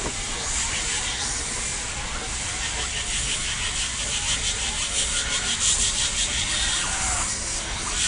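Tyres of a 1/6-scale FMS Jimny LJ1 RC crawler rolling over dry leaves and dirt, a steady rustling hiss. A fast, even ticking joins for a few seconds midway.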